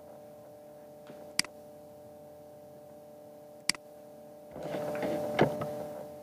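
Two sharp computer-mouse clicks a little over two seconds apart over a steady electrical hum, then a short stretch of rustling handling noise with another click in the middle of it near the end.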